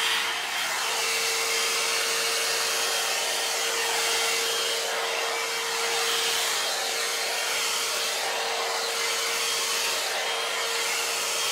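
Head Kandy Commitment Issues blow dry brush running at a steady speed, blowing air through damp hair to dry it: an even rush of air over a constant motor hum, gently swelling and easing as the brush is drawn through the hair.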